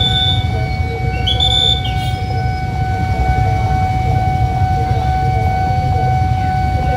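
A JR 205 series electric commuter train rolling in slowly: a steady low rumble under a steady high-pitched tone, with two short high chirps in the first two seconds.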